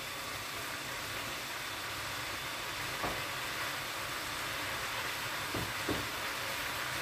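Orange marmalade and sugar sauce bubbling and sizzling steadily in a nonstick wok as it reduces down to a thick glaze. A few faint knocks come near the middle and toward the end.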